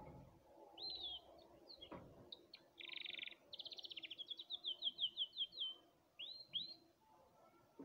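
Domestic canary singing: a few short chirps, then a quick buzzy trill, then a fast run of repeated falling notes at about six a second, ending in two separate whistled notes.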